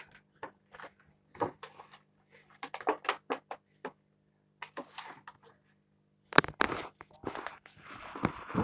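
Clear plastic blister packaging being handled and worked open, with scattered sharp crackles and clicks. About six seconds in come louder knocks and rustling.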